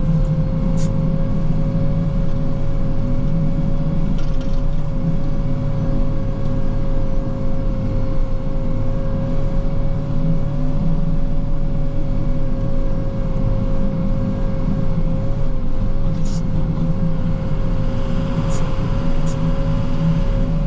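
Plow truck running steadily on the road, heard from inside the cab: a steady low engine rumble with a steady high whine over it and a few faint clicks.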